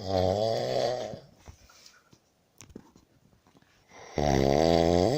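Loud snoring: two long, wavering snores, one at the start and the next about four seconds in, with quiet breathing gaps between.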